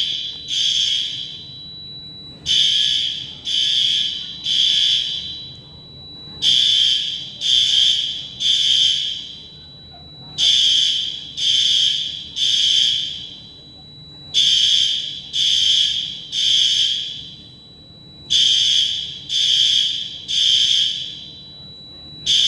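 Fire alarm sounding the temporal-three evacuation pattern: three high-pitched horn pulses, then a pause, repeating about every four seconds. A thin steady high tone runs underneath.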